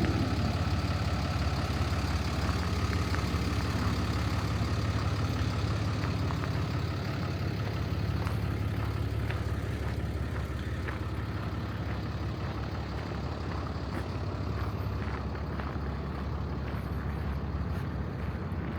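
A 2017 Peterbilt 337 box truck's Paccar PX-7 six-cylinder diesel engine idling steadily with a low, even hum.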